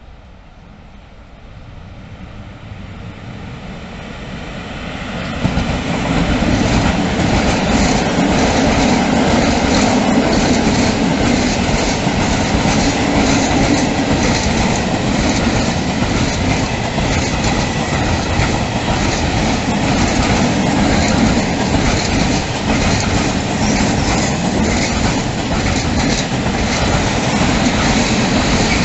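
ET22 electric freight locomotive approaching, growing louder over the first few seconds, then passing close by about five seconds in. A long train of loaded Eaos open wagons follows, rolling by with steady rumbling and wheels clicking rhythmically over the rail joints.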